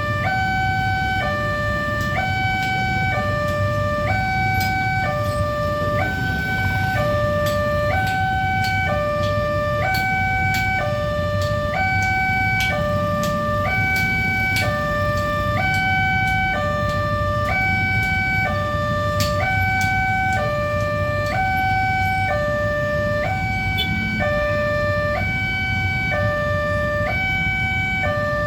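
Railway level-crossing warning siren sounding a steady two-tone hi-lo wail, switching evenly back and forth between a higher and a lower tone, each held well under a second. It is the crossing's alarm that the gate is closing for an approaching train. A low rumble of road traffic runs underneath.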